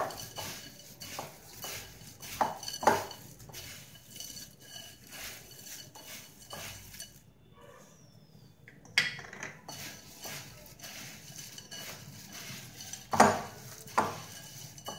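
Crisp fried boondi, peanuts and curry leaves tossed by hand in a glass bowl: dry rustling with light clicks against the glass. The mixing pauses for a second or two partway through, and there are a few sharper knocks near the end.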